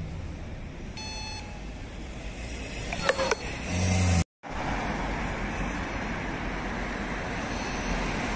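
City street traffic noise: a steady wash of passing cars, one vehicle rumbling past loudly about four seconds in, with a short electronic beep about a second in. The sound cuts out for a moment just after the loud vehicle, then the steady traffic noise resumes.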